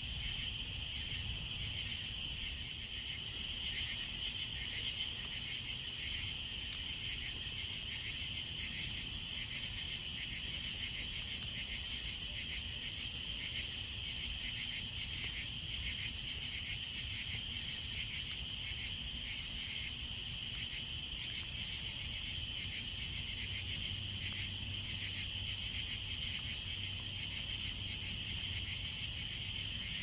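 Crickets chirping in a steady, unbroken night chorus.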